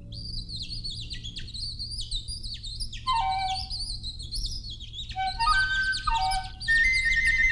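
Bird twittering on a film soundtrack: quick, high chirps and trills, with a few lower whistled notes in the middle. Near the end a steady high held note comes in. A low hum runs underneath.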